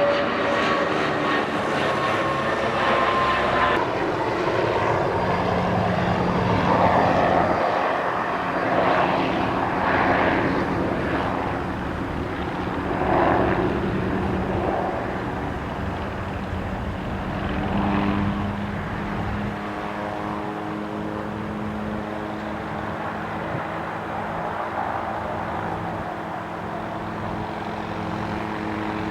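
Propeller aircraft in flight, its engine droning steadily while the level swells and eases as it moves across the sky.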